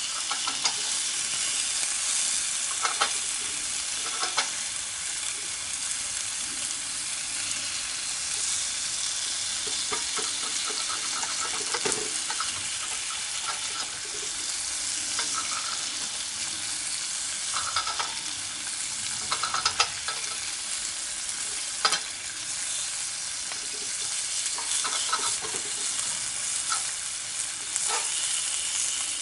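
Food sizzling steadily as it fries on a hot cooking surface, with occasional sharp taps and scrapes of a cooking utensil.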